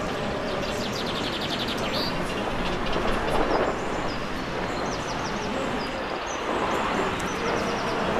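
Steady rumbling background noise with birds chirping and trilling over it, several quick trills coming early.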